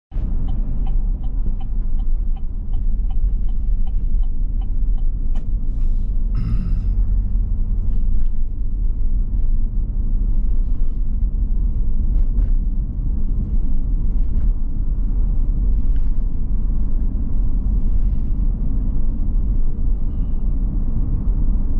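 Car road noise heard from inside the cabin while driving: a steady low rumble. A regular light ticking, about three a second, runs for the first five seconds, and a brief noisy burst comes a little after six seconds.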